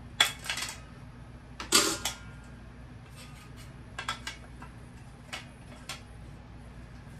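Scattered clicks and clattering knocks of kitchen accessories being handled and taken out below the camera, the loudest about two seconds in.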